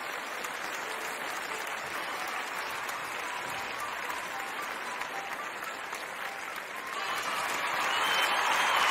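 Applause from many hands clapping, steady at first and growing louder about seven seconds in.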